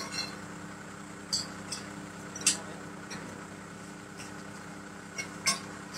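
Sharp metallic clicks and clinks, about five scattered through, the loudest about two and a half and five and a half seconds in, from a wrench with a long pipe extension being worked on the bolts of a steel beam connection. Under them runs a steady low engine hum.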